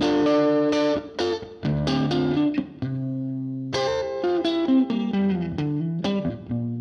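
Music led by an electric guitar: plucked notes struck in quick succession over held bass notes.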